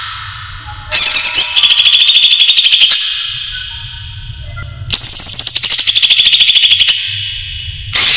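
Cucak ijo (leafbird) lure call: loud, high-pitched bursts of rapidly repeated notes about two seconds long. One starts about a second in, another near five seconds and a third near the end, each trailing off into a fading ring, with a low hum in the gaps.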